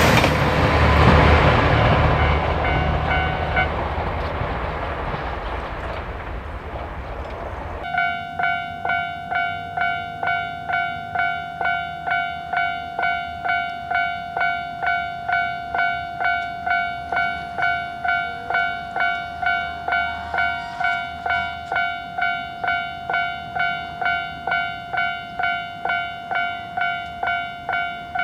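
A train passing a railway level crossing, its rumble fading over several seconds. About eight seconds in it gives way abruptly to a Japanese level-crossing warning bell ringing steadily, kan-kan-kan, at just under two strikes a second.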